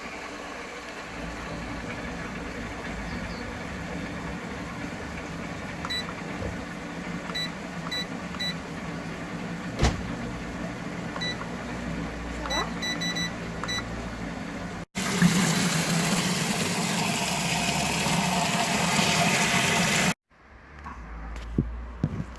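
Short high electronic beeps, single and in quick runs, over a steady hum; after an abrupt cut a louder, even rushing noise runs for about five seconds, then cuts off suddenly.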